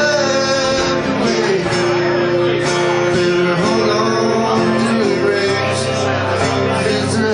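Live country band playing, with guitar to the fore.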